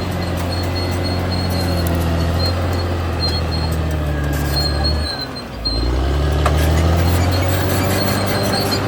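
Caterpillar D6R XL bulldozer's diesel engine running steadily while the crawler tracks clatter and give short high squeals. About five seconds in, the engine note briefly drops and then climbs back up.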